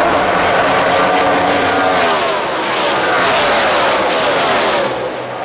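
NASCAR Sprint Cup stock cars' V8 engines passing at full racing speed, several in quick succession, each dropping in pitch as it goes by. The sound fades near the end.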